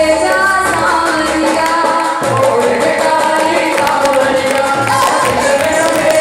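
A song: a voice singing a melody over instrumental accompaniment.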